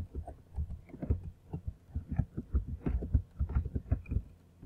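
Computer keyboard typing: a quick, irregular run of dull keystrokes, several a second.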